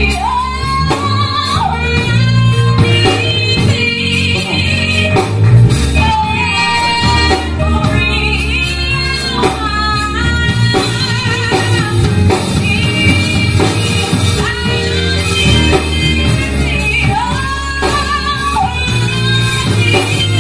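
Live gospel band: a woman sings the lead through a microphone with vibrato, over keyboard, drums and electric guitar.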